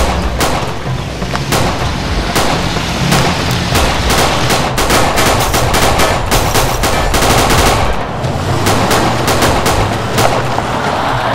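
Rapid automatic gunfire, many shots in quick runs, heaviest in the middle, with a film score underneath.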